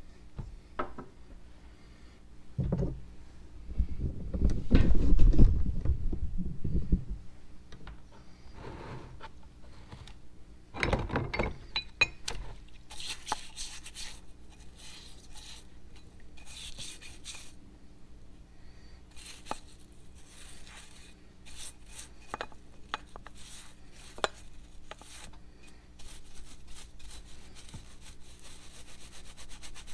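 Metal meat-grinder parts being handled on a workbench: knocking and clatter for a few seconds, then a run of short rubbing and scraping strokes with light clinks.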